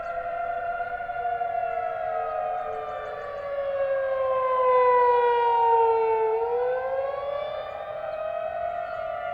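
Outdoor civil-defense warning siren sounding a test, heard from a distance. Several tones sound at once; they sink slowly in pitch for about six seconds, then turn and climb again. The sound swells louder about halfway through.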